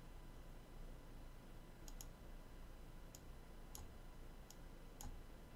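Computer mouse clicking faintly, about six clicks at uneven intervals, some in quick pairs.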